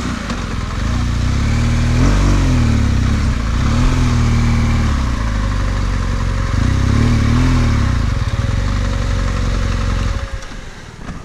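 BMW R1200GS Adventure's boxer twin engine catching on the starter, then running at low revs with three short throttle blips while the bike is moved slowly over gravel. The engine note drops away about ten seconds in.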